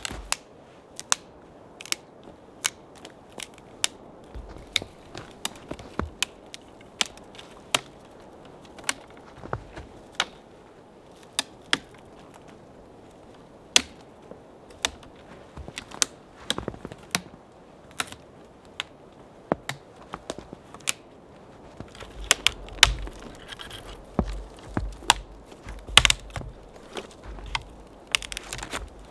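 Small dead twigs and branches being snapped for firewood: sharp, irregular cracks, about one or two a second, with low thumps joining in near the end.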